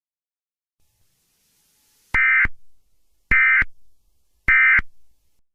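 Emergency Alert System end-of-message (EOM) data bursts: three short, identical bursts of digital data tones, a little over a second apart, marking the end of the alert.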